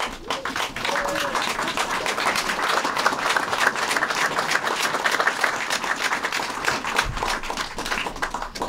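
Applause from a room full of people: many hands clapping. It starts all at once, holds steady, and thins out near the end.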